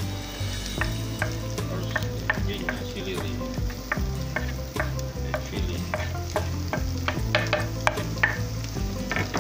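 Diced vegetables, egg and chopped sausage frying and sizzling in oil in a pan, stirred with a spatula that scrapes and taps against the pan a few times a second.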